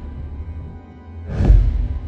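Tense, ominous film score: a steady low drone with a deep pulse that swells about once every two seconds, one hitting about one and a half seconds in.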